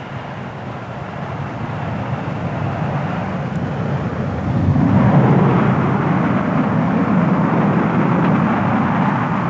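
An airliner passing low overhead: a deep, steady noise that grows louder over about five seconds and then stays loud.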